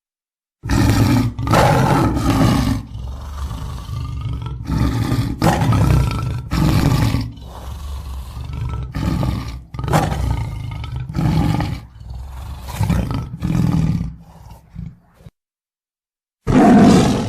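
Big-cat roars and growls, one loud call after another with short breaks, for about fifteen seconds, then a pause of dead silence and one more short roar near the end.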